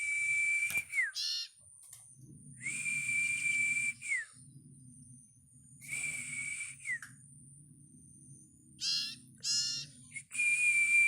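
Young common iora (cipow) calling: long drawn-out whistles, each held on one steady pitch for about a second and then dropping sharply at the end, given four times, with a few short chirps in between.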